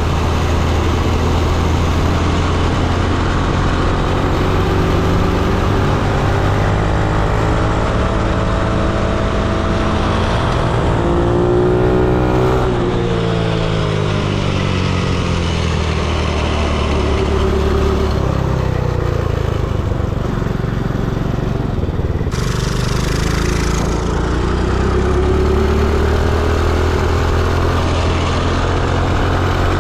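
Small single-cylinder minibike engines running at speed. The pitch climbs for about twelve seconds, drops back, then rises again near the end as the throttle is worked.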